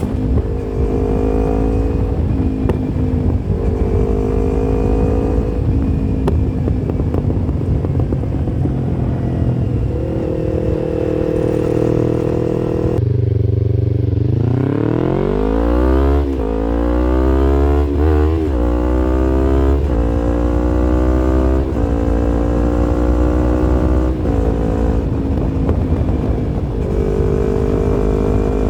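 Yamaha MT-25 motorcycle's parallel-twin engine running steadily, then dropping to low revs about halfway through. It then accelerates with a long rising pitch, followed by several climbs, each falling back at a gear change as it pulls up through the gears.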